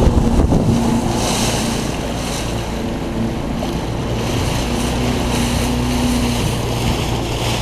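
Boat engine running steadily as the boat moves over open water, a low hum under wind on the microphone and rushing water, with the wind gusting louder at times.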